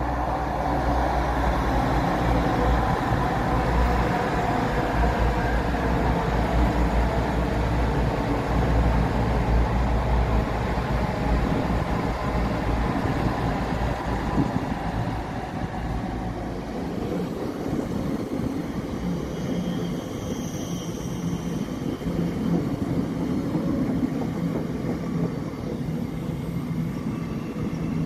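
Thameslink Class 700 electric multiple unit running into the platform: a steady rumble of wheels and running gear that eases off about two-thirds through as the train slows. Faint high whining tones come in near the end.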